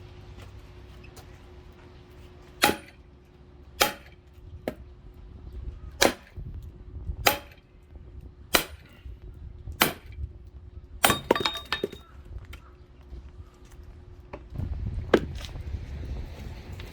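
Axe splitting firewood: a series of sharp chopping strikes about every second and a quarter, then a quick cluster of several hits with a brief ring, and one last strike near the end.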